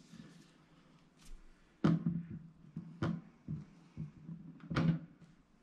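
Hard plastic clunks and knocks as a resin 3D printer's metal build plate is seated into the water-filled wash container of an Anycubic Wash & Cure Plus: several sharp knocks over a few seconds, the loudest about two seconds in.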